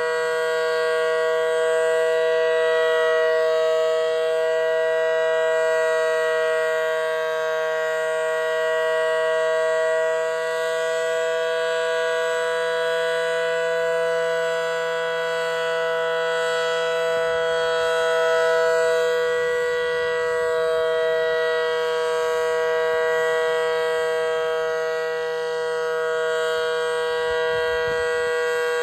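Federal Signal Model 5BT electromechanical warning siren sounding at full speed: a loud, steady two-note chord held without wavering in pitch.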